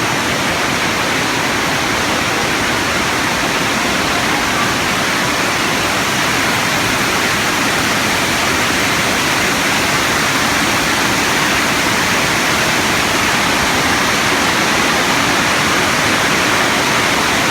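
Heavy rain pouring down in a loud, steady hiss that holds unchanged throughout.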